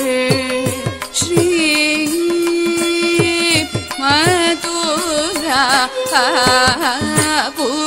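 Carnatic vocal singing with sliding ornaments, including a long held note on the syllable 'Sri' about two seconds in. It runs over regular mridangam strokes whose bass tones fall in pitch. This is the music of a varnam in ragamalika set to adi talam.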